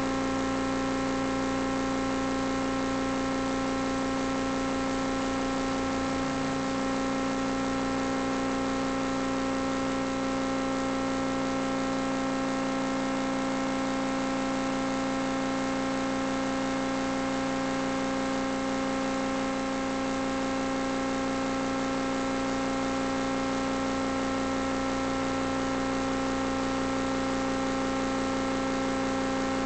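Steady electrical hum with hiss, made of several fixed tones that never change in pitch or level: interference in the vehicle-mounted camera's audio.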